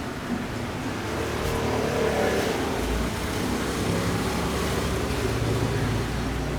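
A motor vehicle's engine running, with a steady low hum that grows louder about a second and a half in and stays up until near the end.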